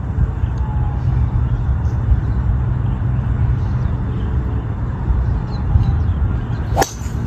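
Golf cart running steadily with a low rumble. There is a single sharp click near the end.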